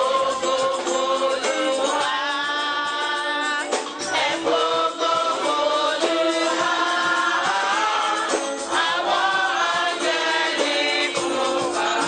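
A congregation singing a gospel hymn together, many voices at once.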